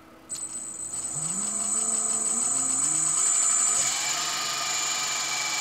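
Car alternator converted to a brushless motor, driven by an RC airplane speed controller, starting up and running. A high steady whine comes on about a third of a second in, with a lower hum that climbs in steps over the next two seconds and then holds steady.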